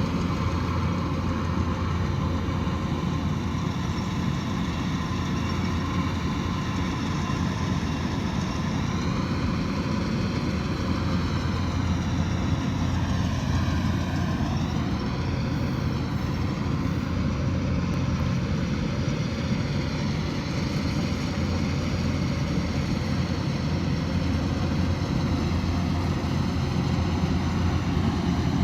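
Kubota DC108X combine harvester running steadily with a deep, even engine hum.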